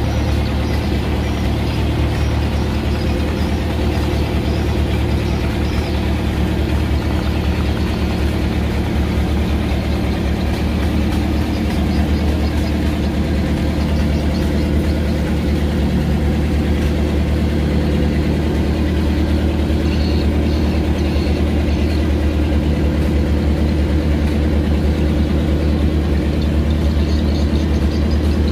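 Boat engine idling, a steady low-pitched drone.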